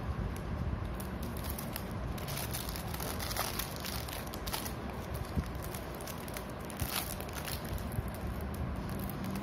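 Clear plastic packaging bag crinkling and crackling in irregular bursts as a sealed flip phone cover is handled and turned over, with light handling of cardboard boxes.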